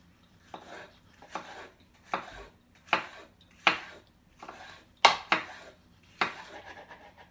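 Kitchen knife chopping green bell pepper on a wooden cutting board: a sharp knock with each cut, about one a second, irregular.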